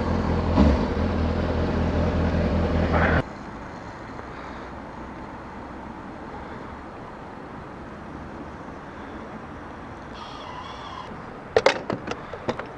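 Motorcycle engine idling steadily, then switched off abruptly about three seconds in. A few sharp clicks and knocks follow near the end.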